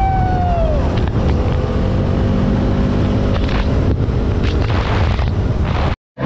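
Motorcycle riding at road speed: the engine runs steadily under heavy wind rush on the microphone, with a falling whine in the first second. The sound cuts out briefly near the end.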